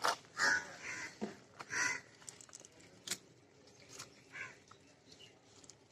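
A few short bird calls, loudest in the first two seconds and fainter around four seconds in, with a sharp click about three seconds in.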